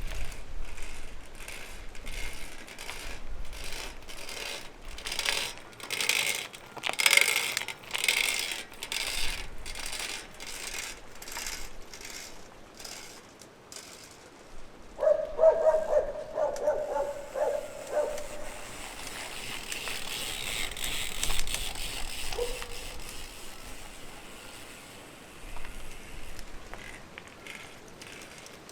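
Shimano XT FH-M8110 Micro Spline rear hub and freehub being turned and clicking about two to three times a second. Past the middle comes a drawn-out pitched creak, then a high whirring. This is the creaking these hubs develop when the freehub runs dry of grease.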